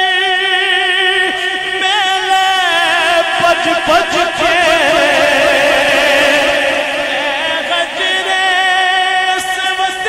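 Male voice singing a Punjabi naat, holding long notes and ornamenting them with wavering runs, loudest and busiest around the middle.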